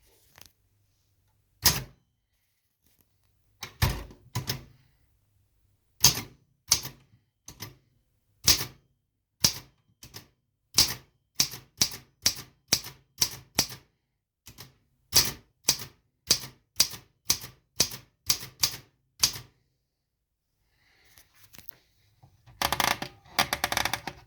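1941 Olympia Progress manual typewriter being typed on slowly: single sharp typebar strikes, one to two a second, with short pauses. Near the end comes a longer, denser mechanical rattle.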